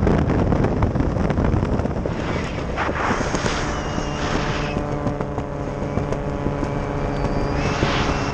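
Wind rushing over the microphone of a skydiver descending under an open parachute canopy, with a steady humming drone joining about halfway in.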